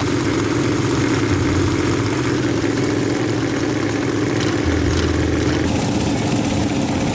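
Racing lawn mower engine running at a steady pitch.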